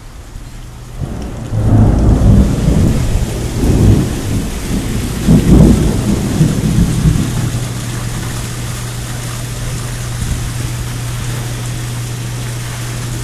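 A loud thunderclap about a second in, rumbling on in several waves for about six seconds before dying down, over steady rain.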